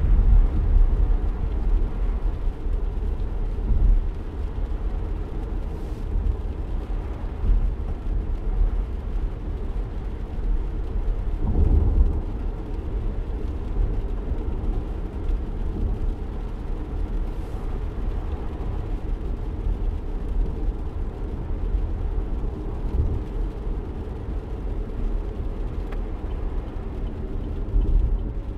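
Steady low road rumble of a car driving in the rain, heard from inside the cabin, swelling briefly about twelve seconds in.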